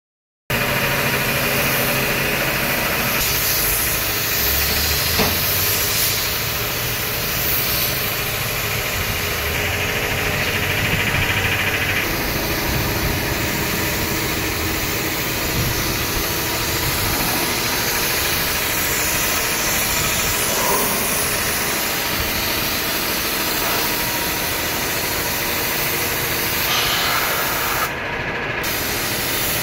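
Compressed-air spray gun hissing steadily as it blasts a mist of diesel onto a backhoe loader to wash it. An engine is running steadily underneath.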